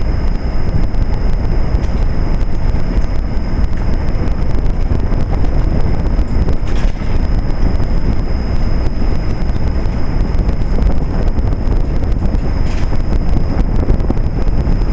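1998 Trane XL1800 5-ton heat pump outdoor unit running steadily in cooling mode: its reciprocating compressor and condenser fan make a steady low rush with a thin, steady high whine over it.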